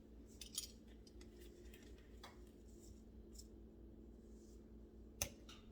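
Near silence: room tone with a faint steady hum and a few faint light clicks, the sharpest about five seconds in.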